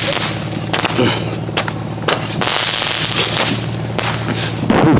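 Consumer fireworks going off: a string of sharp bangs spaced a fraction of a second to about a second apart, a crackling burst in the middle, and the loudest bang near the end.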